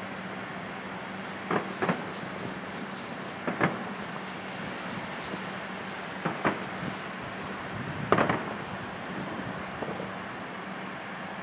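Distant aerial fireworks bursting: about six separate bangs at irregular intervals, the loudest a quick cluster about eight seconds in, over a steady background hiss and a low hum.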